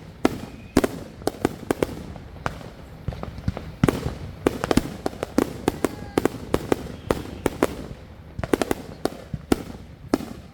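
Fireworks going off in rapid, irregular succession: dozens of sharp bangs and cracks, some close together in quick clusters.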